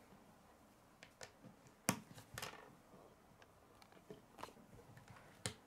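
Sparse light clicks and taps of K'nex plastic pieces being handled, pushed together and set down on a wooden tabletop, the sharpest about two seconds in and again near the end.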